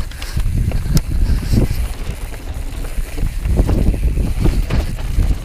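Wind buffeting the microphone with a steady low rumble, over the clatter and repeated knocks of a mountain bike riding fast down a rough, rooty forest trail.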